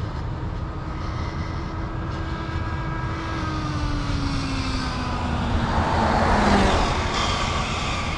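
An RC car's 6S brushless motor and drivetrain whining during a high-speed pass, the whine falling slowly and steadily in pitch over a constant rush of wind noise. There is a louder surge of noise about six seconds in.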